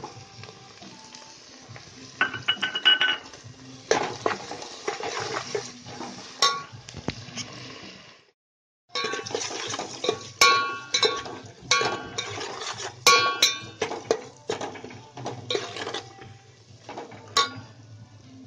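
Steel spoon clinking and scraping against a steel cooking pot as a tomato and spice masala is stirred into frying onions, many quick ringing clinks in irregular runs. The sound cuts out completely for under a second about eight seconds in.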